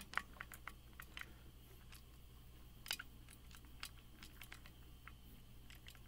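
Faint, scattered small clicks of a lock pick probing and jiggling the wafers inside a Miwa U9 wafer lock cylinder held under tension, testing each wafer for play to find the one that is binding. A low steady hum sits underneath.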